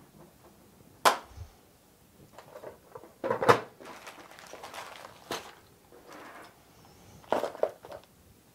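Packaging being handled as a shipping box is opened: a series of knocks and thumps, loudest about three and a half seconds in, with scraping and rustling between them.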